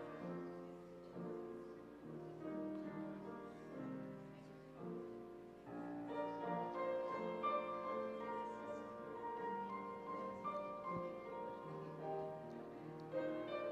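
Soft, slow keyboard music: held chords with a gentle melody, moving to a higher register about six seconds in.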